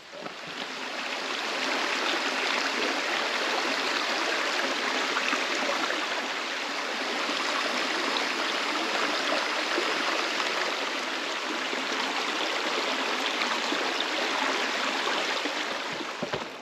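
A rocky mountain creek running over a small cascade: a steady rush and splash of water that swells in over the first couple of seconds and fades near the end.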